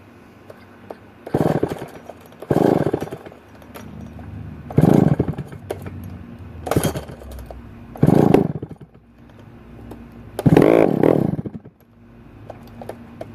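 McCulloch 1-71 87cc direct-drive chainsaw being pull-started six times, each pull a short burst of cranking that dies away without the engine catching. The saw has run off its prime and is not starting on tank fuel, which the owner puts down to a carburettor diaphragm that could have stiffened from sitting.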